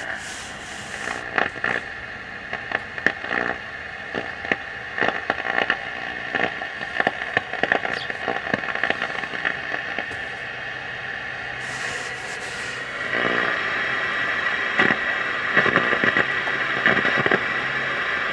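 Philco Predicta tube television's loudspeaker giving out steady static hiss with frequent crackles, a little louder about two-thirds of the way in. The speaker is now wired to the correct output pins, in place of the earlier gurgling.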